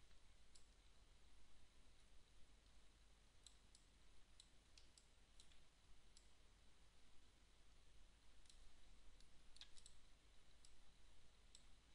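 A dozen or so faint, irregularly spaced computer mouse clicks over near silence and a low steady hum.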